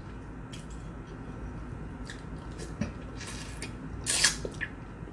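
Close-miked eating sounds: a seasoned boiled shrimp is bitten and sucked, giving a few short crackles and wet sucking noises, the loudest a sharp slurp a little after four seconds in.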